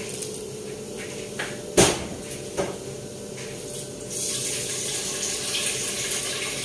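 Glass pot lid knocking and clinking three times, the middle knock the loudest, as it is lifted off a pot of boiling mung beans and set down on a metal stovetop. About four seconds in, a steady watery hiss starts.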